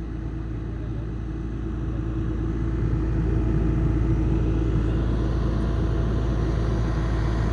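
Engine of a horizontal directional drilling rig running steadily, growing a little louder about two to three seconds in as the rig is worked in reverse.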